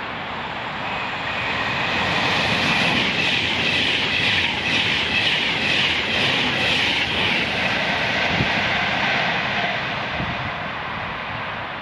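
Class 390 Pendolino electric train passing through the station at speed without stopping. A rush of wheel, rail and air noise builds, peaks around the middle, then eases away.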